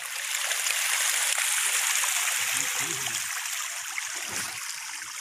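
Steady splashing and churning of water as a crowd of pangasius catfish thrashes at the pond surface in a feeding frenzy.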